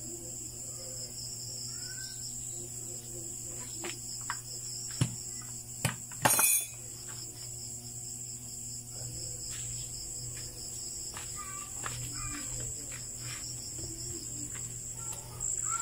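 Crickets chirring steadily at a high pitch over a low steady hum, with a few metal clinks from hands and tools on an opened boat gearbox, the loudest a short clatter about six seconds in.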